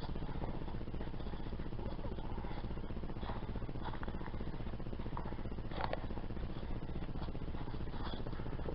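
A steady low rumble, with a few short crunches of footsteps on the trail scattered through the middle and near the end.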